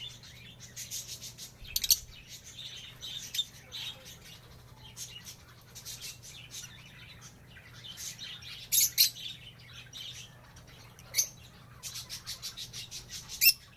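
African lovebirds chirping: a rapid stream of short, high chirps with a few loud, sharp shrieks, the loudest about nine seconds in and just before the end.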